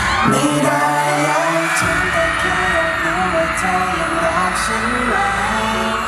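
Live pop song with singing over a concert sound system; the bass drops out at the start and comes back in about two seconds in.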